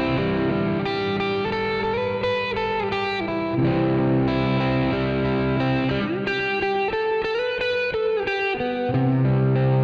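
Electric guitar on a blue semi-hollow body playing a single-note solo phrase over a sustained C-chord backing, built from the chord's notes and starting on G, its fifth. Several notes are bent up and released.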